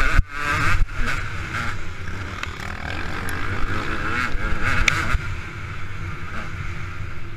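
KTM 200 EXC two-stroke single-cylinder engine running under load on a dirt track, its revs rising and falling as the rider works the throttle, with a sharp dip just after the start and the note easing off about five seconds in. A low rumble of wind on the helmet-mounted camera runs underneath.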